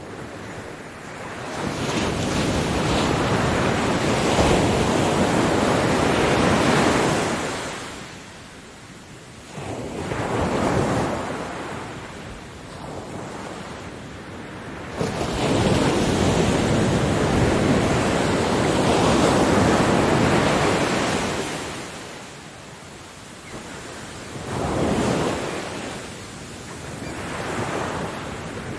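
Ocean waves breaking and washing ashore, the surf noise swelling and fading in long surges: two big breakers of several seconds each, with smaller ones between.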